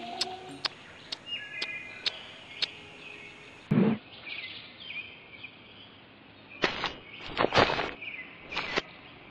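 Small birds chirping in the woods, with a single dull thud about four seconds in. Near the end comes a quick run of short swishing and rustling sounds as the fight begins.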